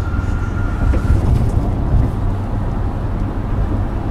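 Steady low rumble of a car's engine and road noise heard from inside the cabin, with a faint thin whine that stops about a second in.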